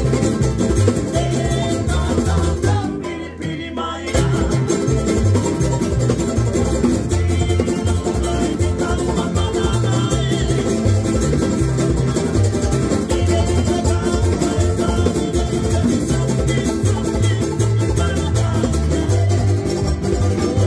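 Tahitian kaina string band playing: a mandolin, a Tahitian ukulele, a small electric guitar and an acoustic guitar strummed together over a steady low beat. The music drops briefly about three seconds in, then carries on.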